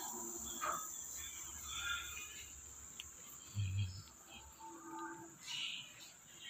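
Quiet background ambience with a steady high-pitched drone and faint scattered sounds, and a soft low thump about three and a half seconds in.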